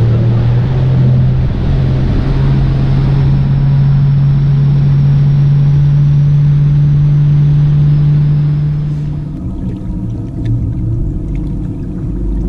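Mercury Pro XS four-stroke outboard pushing a bass boat at running speed: a loud, steady low drone with wind and water rush. About nine seconds in it drops away, leaving a quieter low rumble with a few light ticks.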